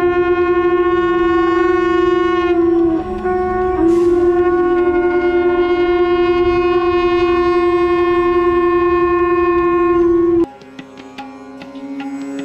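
Conch shell (shankh) blown in one long held note to open the aarti, with a brief dip about three seconds in. It cuts off sharply near the end, and instrumental music comes in.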